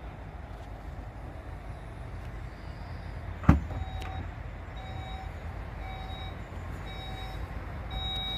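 A sharp clunk as the Seat Tarraco's tailgate latch releases, then the power tailgate rises with its warning beep sounding about once a second.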